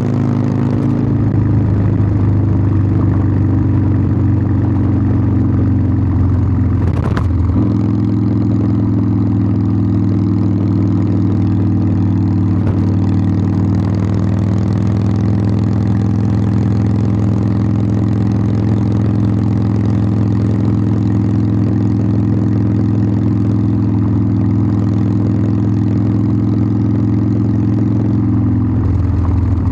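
Harley-Davidson Sportster 1200's air-cooled V-twin exhaust running at a steady pace, with a sudden change in engine note about seven seconds in and another shortly before the end.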